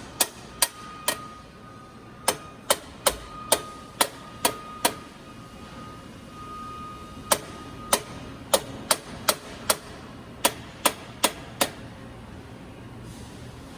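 Machinery at a car-body welding station: sharp metallic clacks in quick runs of four to six, about two or three a second, with short pauses between runs, over a steady background hum and a faint thin tone at times.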